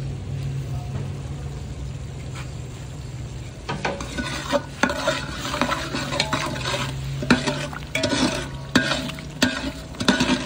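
A metal ladle stirring hot spice masala in a large metal pot, the masala sizzling under a steady low hum; from about four seconds in, repeated scrapes and clinks of the ladle against the pot, several a second.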